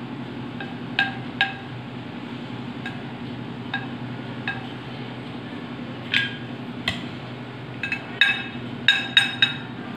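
Spoons scraping and clinking against an oval glass baking dish while a thick custard layer is spread and smoothed: scattered sharp taps with a short glassy ring, coming quicker and closer together in the last few seconds, over a steady low hum.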